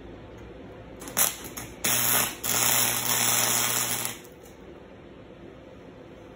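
Wire-feed (MIG) welder arc crackling: a couple of short tacks about a second in, then a brief burst and a steady weld of about a second and a half that cuts off sharply, with a low hum from the welder under the arc.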